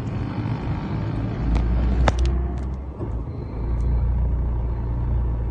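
Low, steady rumble of a car heard from inside its cabin, with a few sharp clicks about a second and a half to two seconds in.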